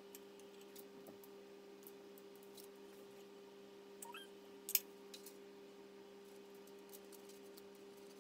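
Faint clicks and taps of slicing a sprinkle-coated cookie dough log and pushing the slices onto lollipop sticks on a parchment-lined baking tray, with one sharper click a little past the middle. A steady low hum runs underneath.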